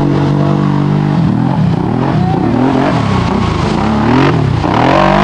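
Arctic Cat ATV engine held steady, then revving up and down again and again as the quad churns through deep mud, climbing to a high rev near the end.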